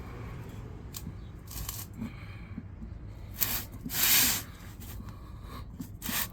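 Soaped rubber tire bead rubbing and scraping against the wheel rim as it is worked on, in several short scrapes, the longest and loudest about four seconds in.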